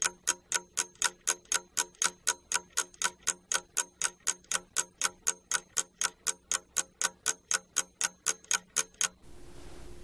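Clock ticking sound effect, even ticks at about three a second, marking the time given to answer the exercise; it stops about nine seconds in.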